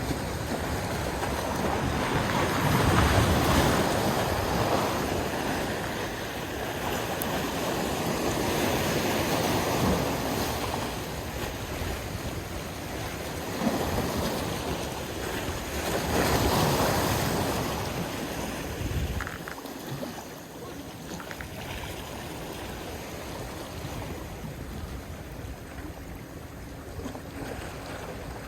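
Waves washing in, swelling and falling back about three times, with wind noise on the microphone.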